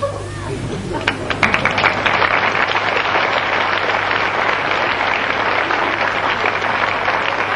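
Audience applauding in a lecture theatre. The clapping builds about a second in and then holds steady, over a constant low mains hum.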